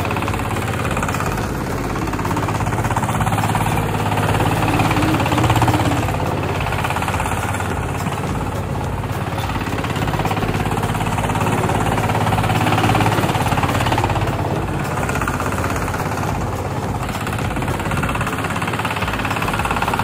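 Diesel engine of a homemade boat tractor running steadily under load with a fast knocking beat as the tractor churns through deep mud.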